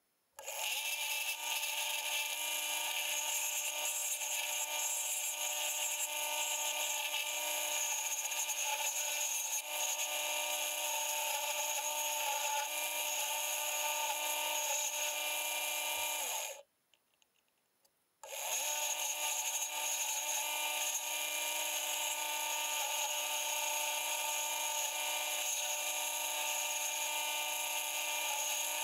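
Wood lathe motor starting up and running steadily with a steady whine, while a hand-held turning chisel cuts the spinning wooden pen blank. About sixteen seconds in the lathe is switched off and its whine falls as it spins down, then about two seconds later it is started again, rising back to speed, and the cutting goes on.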